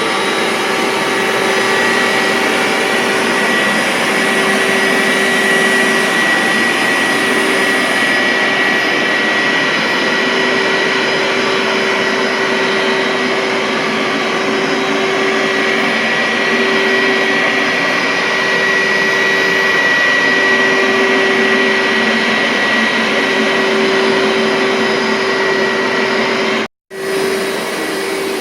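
A 1999 Hoover SteamVac Widepath carpet cleaner running steadily, its suction motor giving a loud, even rush with a steady whine. The sound cuts out for an instant near the end.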